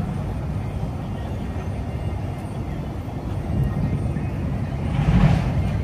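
Outdoor city ambience while walking: a steady low rumble, with a brief louder surge of noise about five seconds in.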